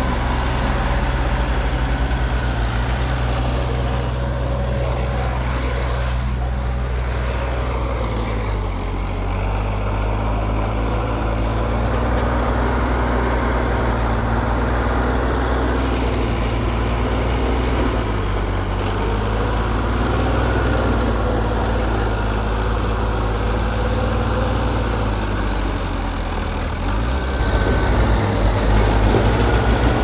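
Large diesel engine of heavy earth-moving machinery running under working load. Its pitch drops about a quarter of the way in, then rises and gets louder near the end.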